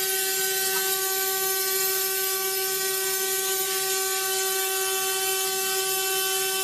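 Trinco sandblasting cabinet running, blasting the weld joint of a bandsaw blade clean: a steady hiss of air and abrasive over a steady multi-tone hum.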